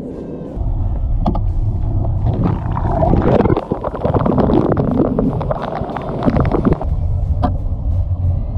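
Churning waterfall water and bubbles heard through a GoPro's waterproof housing, at and below the surface: a deep rumble full of small clicks and crackles that starts suddenly about half a second in.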